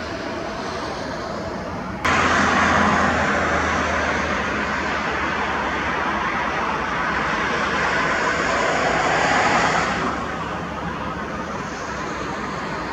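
Jet airliner engines heard from a distance as a steady, even noise with a low hum underneath. It jumps louder abruptly about two seconds in and eases back down near the end.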